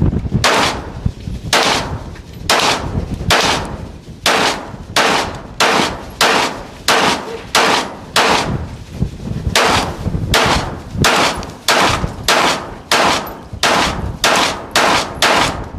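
Glock 19X 9mm pistol fired in a long string of single shots, about two a second, some two dozen in all, with a short break about nine seconds in. The pistol cycles without jamming.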